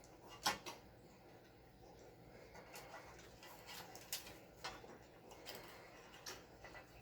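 Scattered small clicks and taps of hand tools and wiring being handled during soldering work, the sharpest click about half a second in.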